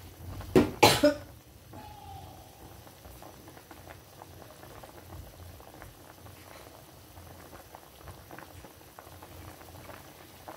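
Stainless steel pot of chilli-and-fish broth at a rolling boil, bubbling and crackling steadily. Under a second in, a person coughs twice, loudly.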